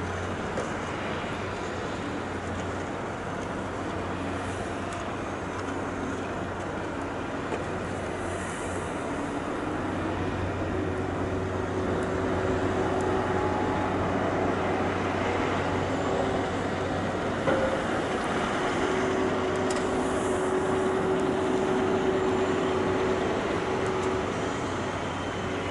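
Diesel engines of a Vögele asphalt paver and road rollers running steadily, a low drone with a constant hum over it. The sound grows louder about halfway through.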